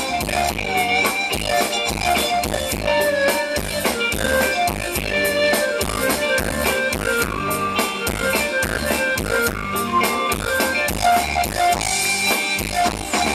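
Live band playing an upbeat Thai ramwong dance tune with no singing: electric guitar and a steady beat on the drum kit.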